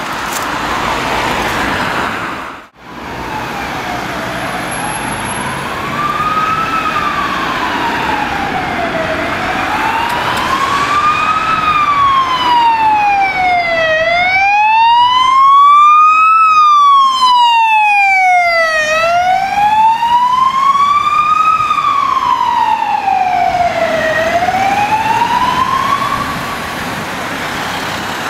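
Ambulance siren on a slow wail, rising and falling about once every five seconds. It grows louder as the vehicle approaches, is loudest about halfway through as it passes, then fades as it drives away. The first couple of seconds hold only passing road traffic.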